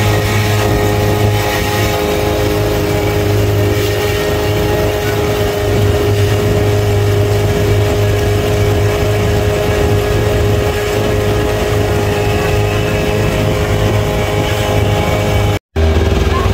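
Engine of a motorised dragon-boat tourist boat running steadily under way, a constant drone. It breaks off for an instant near the end and comes back at a slightly lower pitch.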